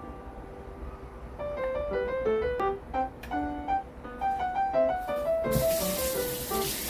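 Background piano music, a melody of separate single notes. About five and a half seconds in, a steady hiss joins it and carries on under the music.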